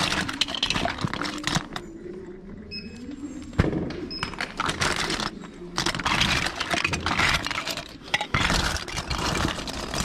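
Loose plastic action figures and accessories clattering and clicking against one another as hands rummage through a pile of them, in several bursts of rattling.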